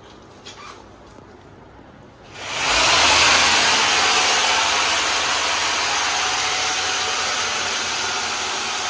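An electric machine spins up about two seconds in and then runs with a loud, steady rushing whir, like a power tool or blower used in carpentry work on kitchen cabinets.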